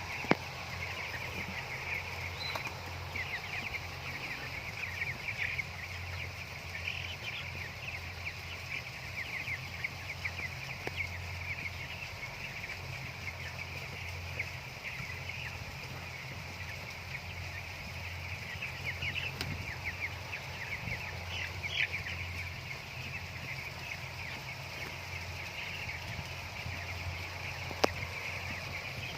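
A flock of broiler chickens peeping continuously, many short high chirps overlapping, over a steady low hum. A sharp click sounds near the start and another near the end.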